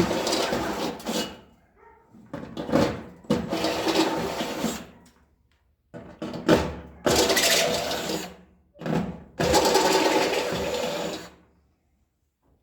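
Electric drill with a step drill bit enlarging holes in a toaster oven's sheet-metal shell, run in four bursts of one to three seconds with short pauses between them.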